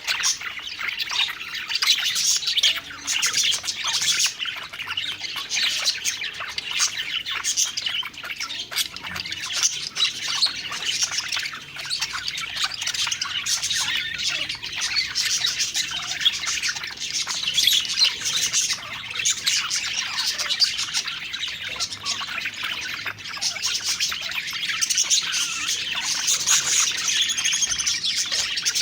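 A flock of budgerigars chattering and warbling together, a continuous stream of quick chirps and squawks with no pauses.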